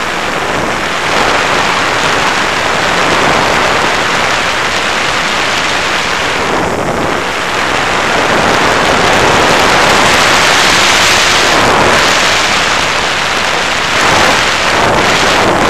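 Loud, steady rushing of airflow over the onboard action camera's microphone on an FPV Raptor model plane in flight, swelling slightly partway through.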